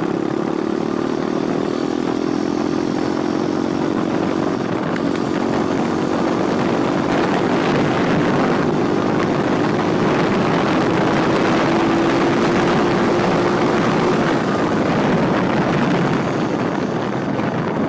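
Pit bike riding at speed, its motor running at a steady pitch that climbs slowly and then drops off a few seconds before the end, under a heavy rush of wind on the microphone.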